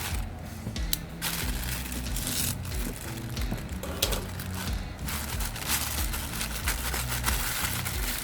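Crinkling and irregular clicking handling noises, like packaging or small plastic parts being handled, over background music with a steady bass line.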